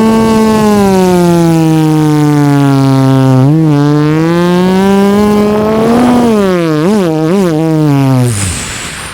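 Beatboxer's vocal imitation of a racing car engine: one long buzzing tone that slowly sinks in pitch, with three quick upward blips in its later half, then dies away near the end.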